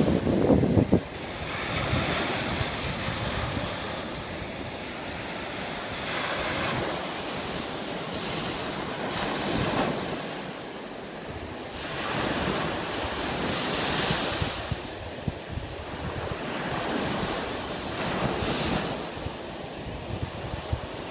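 Ocean surf: small waves breaking and washing up a sand beach, the wash swelling and falling back every few seconds. Wind buffets the microphone for about the first second.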